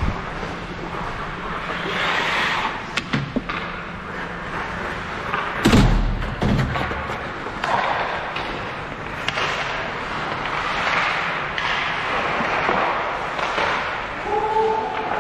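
Ice hockey play: skates scraping on the ice in swells, with sharp stick and puck clacks and one loud thud about six seconds in.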